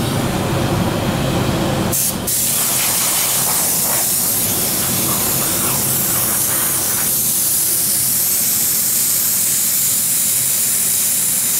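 Compressed-air gravity-feed spray gun hissing as it sprays paint, its air pressure turned down a little. The air cuts out briefly about two seconds in, then the spraying resumes and runs on steadily.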